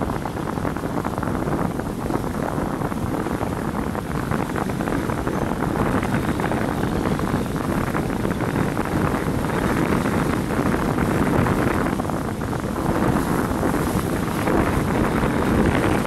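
Steady road and wind noise of a vehicle driving along a paved road, a low rumble and rush that swells a little now and then.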